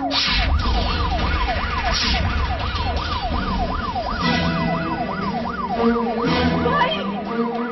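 Emergency-vehicle siren wailing quickly up and down, about two sweeps a second, over a low rumble.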